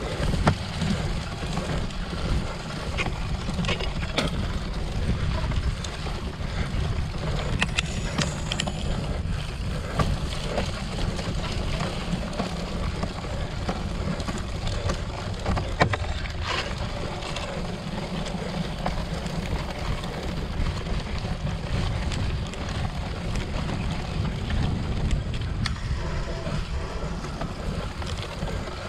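Wind noise buffeting the microphone of a cyclocross racer's camera at race speed, a steady low rumble, with occasional sharp knocks and rattles from the bike over rough ground.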